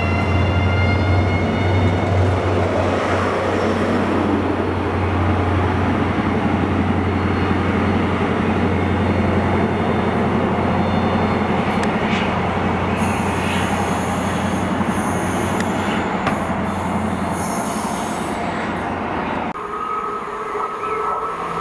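A Class 43 HST diesel power car approaches along the platform line, its engine drone steady under loud rolling wheel noise. High-pitched wheel squeal comes in about two-thirds of the way through. The sound changes abruptly just before the end to a quieter, steady tone.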